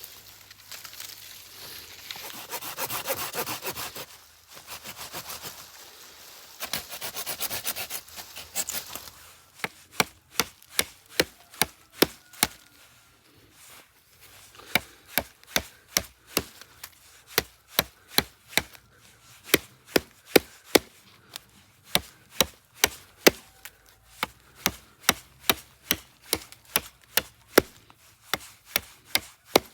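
Wood being sawn by hand with rasping back-and-forth strokes, then a long run of sharp wooden knocks, about two to three a second, with a short pause partway through.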